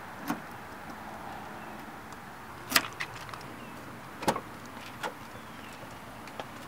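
An SUV's outside door handle and latch clicking as the driver's door is pulled open, a few sharp clicks with the loudest nearly three seconds in and just over four seconds in, over a steady background hiss.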